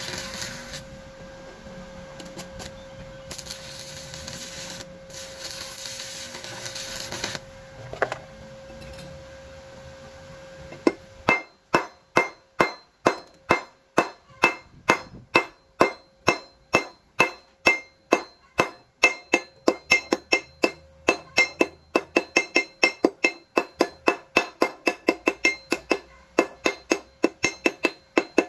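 A hammer striking a steel bar over and over, about two blows a second, each blow ringing metallically; the blows begin about a third of the way in and quicken slightly later. Before that, a steady hissing machine noise runs in spells and stops.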